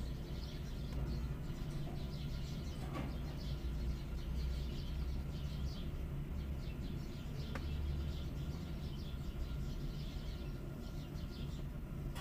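Mother cat's steady low purr, swelling and easing every few seconds, while her newborn kitten nurses, with faint high chirps running over it.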